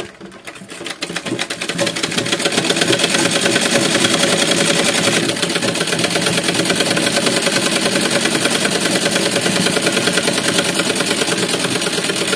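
A black domestic sewing machine stitching a seam in fabric: a fast, even mechanical clatter that picks up speed over the first couple of seconds, then runs steadily.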